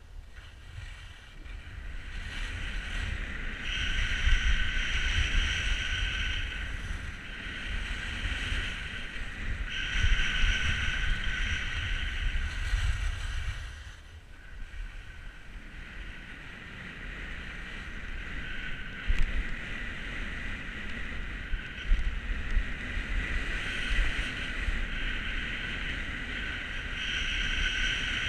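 Skis scraping and hissing over packed, groomed snow during a downhill run, swelling and fading several times through the turns, over low wind buffeting the action camera's microphone.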